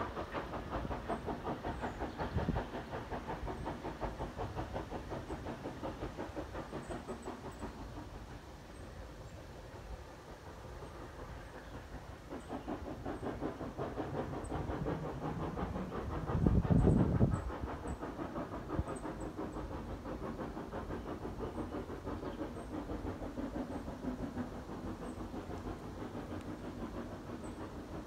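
Steam locomotive pulling a train away, its exhaust beats in a steady rhythm, fading and swelling as it draws off into the distance. A louder low swell comes about two-thirds of the way through.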